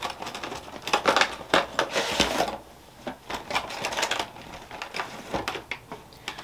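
A gaming mouse being unpacked by hand: the box and its wrapping rustle and crinkle, with a dense burst about a second in, then scattered sharp clicks and taps.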